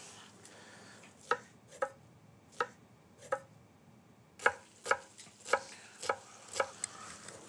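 Chef's knife chopping a peeled onion on a wooden cutting board. A few spaced cuts come first, then a quicker run of chops in the second half.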